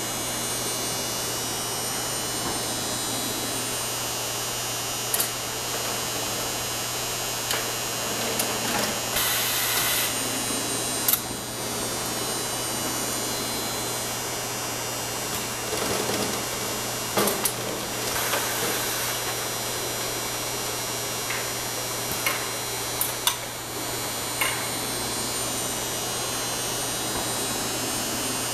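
Factory machinery noise from an automated engine-rack storage buffer: a steady hum with a constant mechanical hiss, and occasional short knocks and clanks from the lift carriage and roller conveyors. A brief burst of hiss about nine seconds in.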